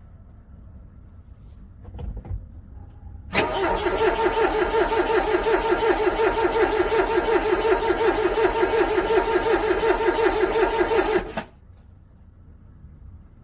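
Car engine cranked cold on its starter motor for about eight seconds, the starter's even pulsing at about four beats a second, without the engine catching; the cranking cuts off suddenly. A short knock comes about a second before the cranking begins.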